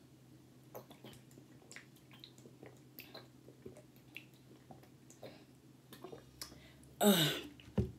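A person gulping water from a plastic bottle: a run of faint swallowing clicks. About seven seconds in, a louder breathy exhale with a voiced sound falling in pitch.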